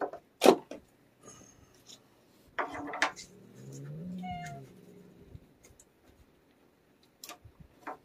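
An untamed, aggressive cat vocalising in its cage. There are two sharp short bursts in the first three seconds, then a low rising-and-falling growling call about four seconds in.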